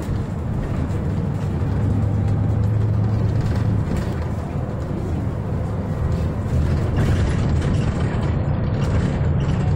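Cabin of a MAN A22 (NL323F) single-deck city bus under way: a steady low engine drone mixed with road noise.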